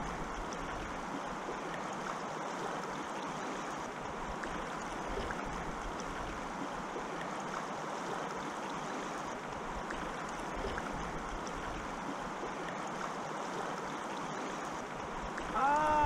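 Steady rush of flowing river water, heard close to the surface. Near the end a man's voice breaks in with a short exclamation that falls in pitch.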